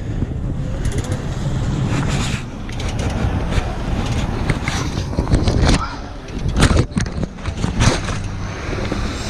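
Heavy recovery truck's diesel engine running steadily, with a series of sharp metallic knocks and clanks, thickest in the second half.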